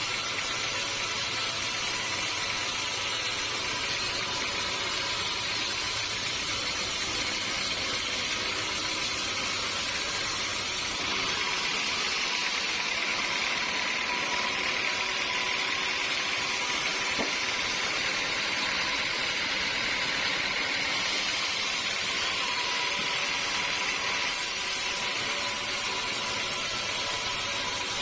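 Sawmill machinery running steadily, a bandsaw mill sawing teak, with a thin steady whine. The sound grows hissier about eleven seconds in and settles back near the end.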